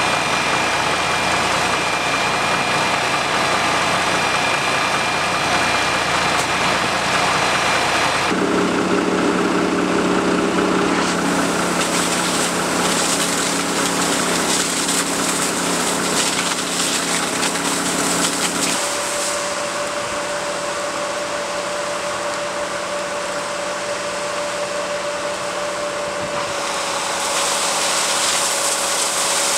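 Fire engine running steadily while it pumps water, mixed with the hiss of a hose jet. The sound changes abruptly three times, with a steady higher hum in the middle stretch.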